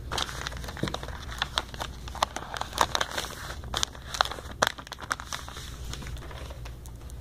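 Crinkling, rustling handling noise from a hand-held phone rubbing against fingers and a sleeve, with a string of sharp crackles for the first few seconds, then quieter.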